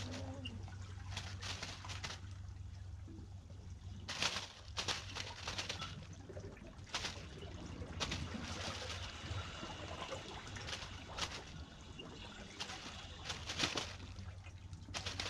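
Small waves lapping and trickling against shoreline rocks, with irregular little splashes every second or so over a steady low hum.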